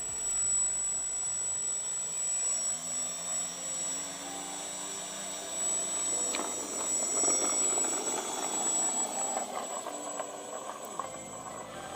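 Small electric motor spinning the propeller of a home-made air-powered car, with a steady high whine and a rushing of air; from about halfway a rapid clattering joins in.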